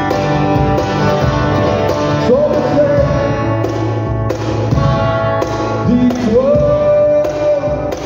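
Live acoustic rock song: a man singing over a strummed acoustic guitar, with a cajón slapped by hand keeping the beat. His voice slides up into long held notes about two seconds in and again about six seconds in.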